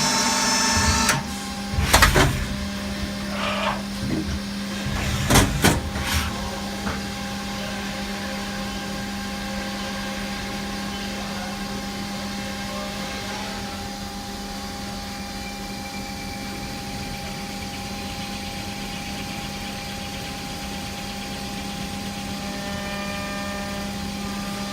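Haas SL-20T CNC lathe under power: its higher running tones stop about a second in, a few loud clunks follow over the next several seconds, then the machine runs on with a steady hum.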